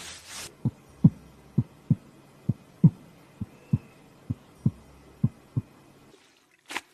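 Heartbeat sound: six low double thumps, lub-dub, a little under one beat a second, then a brief sharp sound near the end.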